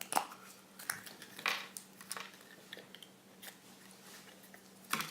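Plastic toy capsule from a Kinder Surprise egg being handled and pried open: irregular crackles and clicks, a few sharper ones among quieter rustling, with a louder click near the end.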